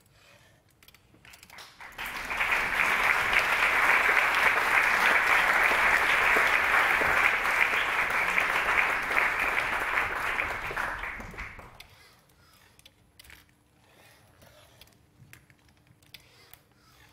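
An audience applauding. It swells up about two seconds in, holds for about ten seconds and dies away, leaving a few faint clicks.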